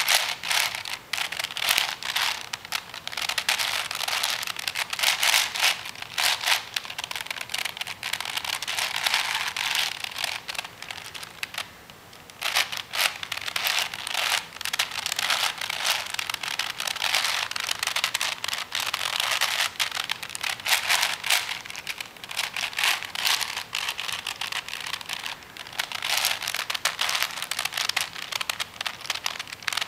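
A V-Cube 7 (7x7x7 twisty puzzle) being turned by hand: its plastic layers click and clack in quick runs of turns, with a short pause about twelve seconds in.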